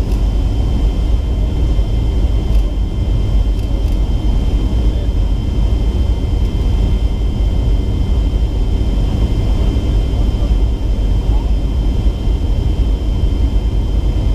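Steady cabin noise inside a Boeing 757-300 in flight: a deep, even rumble of airflow and its Rolls-Royce RB211-535C engines, with a thin high tone held throughout.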